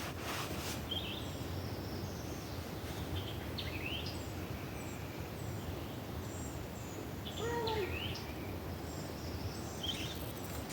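Outdoor ambience: a steady background hiss with scattered short bird chirps, and one brief pitched call about seven and a half seconds in.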